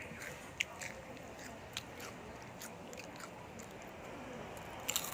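Close-miked eating of a crunchy snack: scattered sharp crunches of biting and chewing, the loudest cluster about five seconds in, over a steady hiss.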